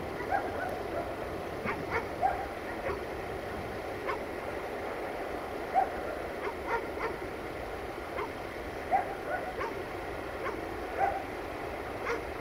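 A dog barking repeatedly in short, irregular barks over a steady background noise.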